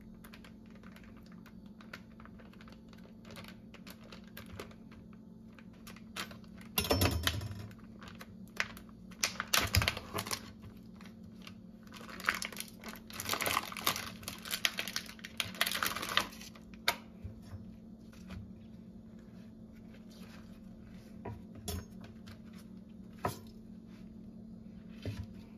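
Plastic packaging of a round of panela cheese being peeled open and unwrapped by hand: several bursts of crinkling and tearing, the longest lasting a few seconds, with small clicks and taps between them.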